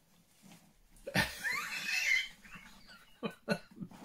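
A man laughing: a sudden burst of laughter about a second in, then a few short chuckles near the end.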